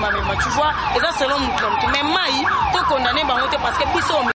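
Electronic siren sounding in quick falling sweeps, about three a second, over a woman's talking.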